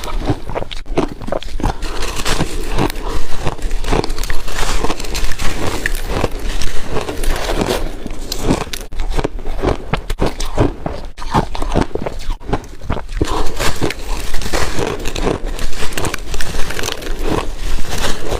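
A person biting and chewing refrozen shaved ice chunks: a loud, dense, irregular run of crisp cracks and crunches that goes on without a break.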